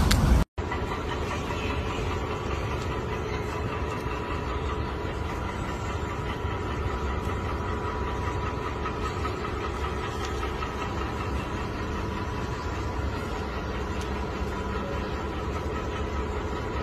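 A brief cut to silence about half a second in, then a steady mechanical hum with a faint steady high tone running through it.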